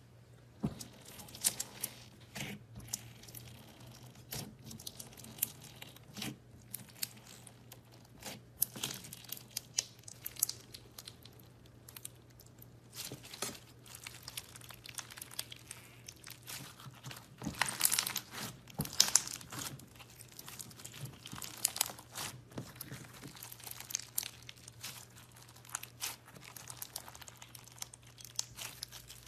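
Clear slime packed with foam beads being squeezed, folded and stretched by hand, giving many crisp crackles and pops from the beads in irregular clusters. The crackling is busiest a little past the middle, over a faint steady low hum.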